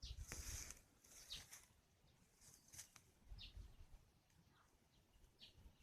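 Near silence outdoors, with a few faint, short bird chirps scattered through it and a brief rustle just after the start.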